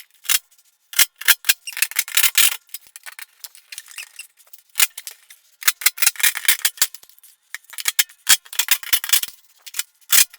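Irregular handling noise: sharp clicks, clinks and rattles, in clusters with short quiet gaps between them.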